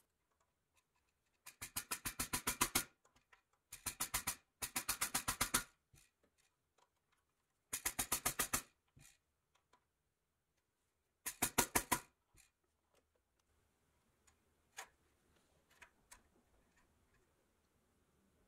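The clockwork spring motor of a 1934 Kingsbury pressed-steel toy car being wound, its ratchet clicking rapidly in five short runs of about nine clicks a second, with a few single ticks after.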